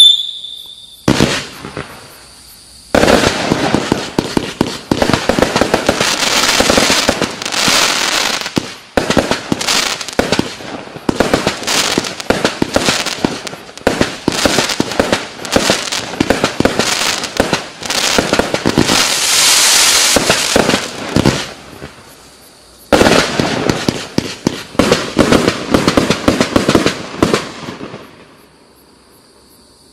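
Klasek 268-shot, 20 mm caliber firework cake firing rapid volleys of shots, one after another. The shots break off briefly about three-quarters of the way through, resume for several seconds, then stop shortly before the end.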